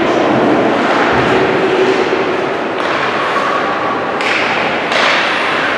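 Ice hockey play on the rink: skates scraping the ice and sticks clacking, with thuds against the boards amid a steady wash of rink noise. Two sharper, brighter hits come about four and five seconds in.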